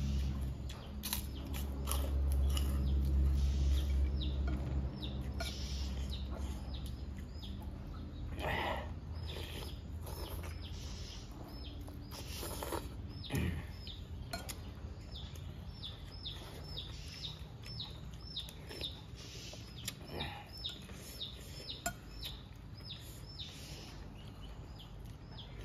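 Eating at a table: a spoon clinking against a bowl and the crunch of crisp fried snacks. A low rumble runs through the first few seconds, and a bird chirps over and over in short falling notes through the second half.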